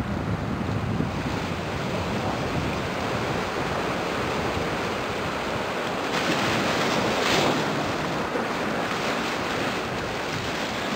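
Surf washing steadily on the shore, with wind buffeting the microphone; a louder, hissier surge of surf comes about two-thirds of the way through.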